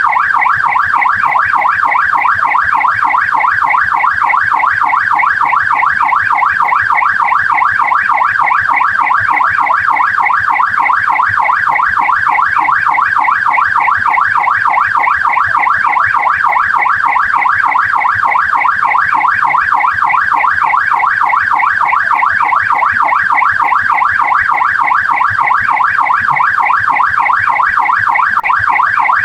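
Australian police car siren in yelp mode, its pitch sweeping rapidly up and down over and over at a steady, loud level.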